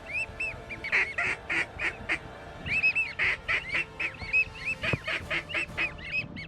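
Duck calls: a rapid string of short, high whistled notes mixed with raspy quacks, several a second, with no let-up.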